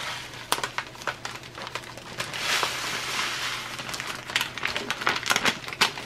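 Dry coating crumbs poured from a paper packet into a plastic bag of raw chicken pieces: a hiss of sliding crumbs about two to three seconds in, with the plastic bag and paper packet crinkling throughout.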